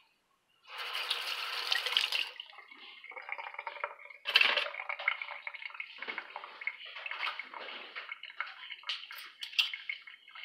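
Water running and splashing irregularly, with a louder hiss from about one second in that lasts about a second and a half.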